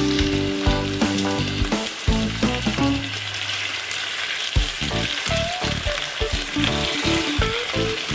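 Raw chicken pieces frying in hot oil in a non-stick pan over a high flame, a steady sizzle as they are turned with a spatula, with background music.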